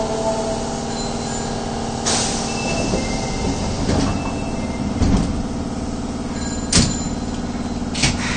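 Osaka Metro Tanimachi Line subway train running, heard inside the car: a steady rumble and hum with short electric motor whines, and several sharp clunks from the wheels and car body.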